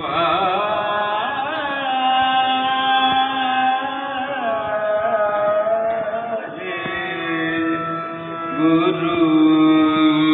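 Music: a singing voice holding long notes that slide in pitch, over a steady drone.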